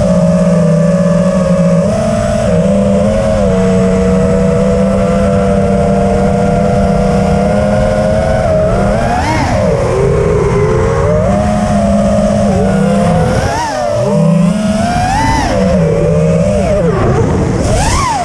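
FPV racing quadcopter's four brushless motors (iFlight Xing-E 2207, 1800kv) spinning Nazgul 5043 propellers, heard through the on-board camera: a steady whine for the first several seconds, then rising and falling in pitch with repeated throttle changes from about nine seconds in.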